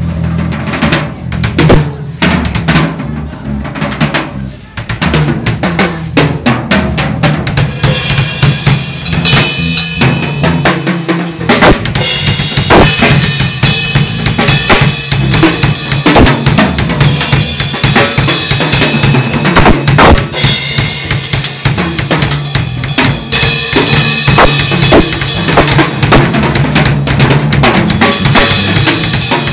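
A drum kit played during a sound check: kick, snare and rimshot strokes, with cymbals washing in from about a quarter of the way through and carrying on over the beat. A steady low tone hums underneath.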